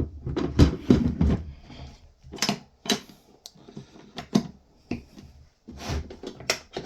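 Plastic clicks, clunks and knocks from handling the Worx WX031 cordless wet and dry vacuum's body and reservoir, in an irregular series of short separate strikes.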